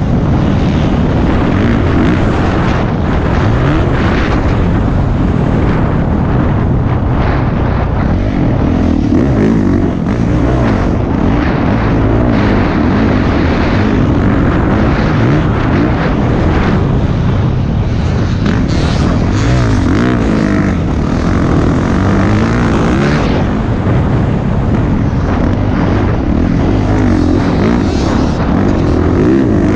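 Single-cylinder four-stroke dirt bike engine revving up and falling back again and again as the bike is ridden hard, with a rising and falling drone.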